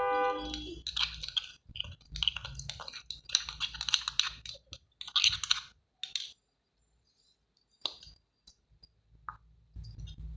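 A ringing tone that cuts off about half a second in, then about five seconds of small clinks, clicks and crunching as things are handled, then quiet apart from a single click.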